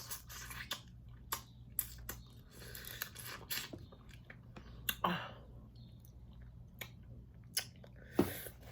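A person chewing spicy seafood, with scattered short wet clicks and crunches; a louder one comes about five seconds in and another near the end.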